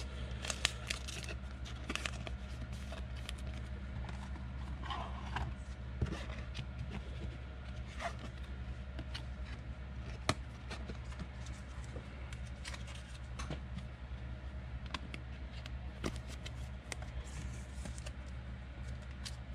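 Trading cards being handled by hand: light, scattered rustles, scrapes and small clicks over a steady low hum.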